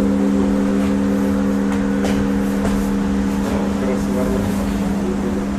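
Large church bells ringing on after being struck, their deep tones humming steadily and slowly fading.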